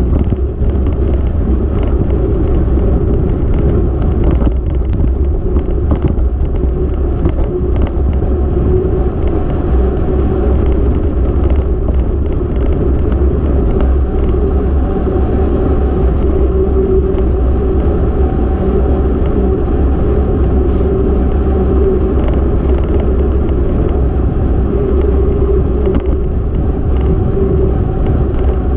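Steady, loud wind rush on the microphone of a camera moving along an asphalt road, with a low road rumble and a faint hum underneath; it runs on without a break.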